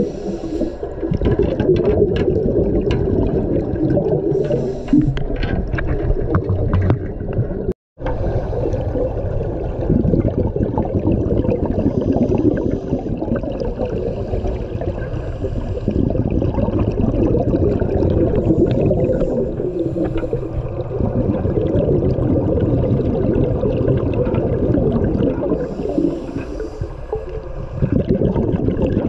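Underwater sound picked up by a camera in its waterproof housing: a dense, muffled rush of water noise. The sound drops out for a moment about eight seconds in.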